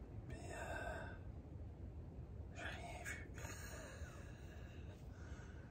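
A person whispering and breathing, faint, in three short breathy spells over a low steady rumble.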